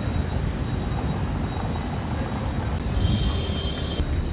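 Audi Q7 SUV pulling up: a steady low rumble of engine and outdoor noise, with a thin high tone for about a second near the end.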